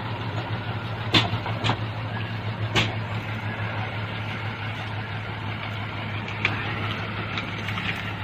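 A heavy diesel engine idling steadily, with three sharp knocks in the first three seconds.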